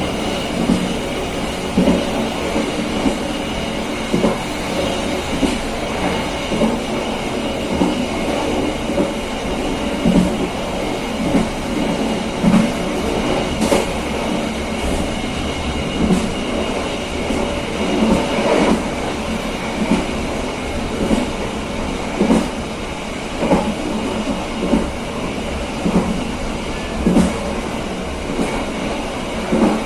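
KA Serayu passenger train running along the line, its carriage wheels knocking over rail joints in a steady series of clacks above a constant rolling rumble.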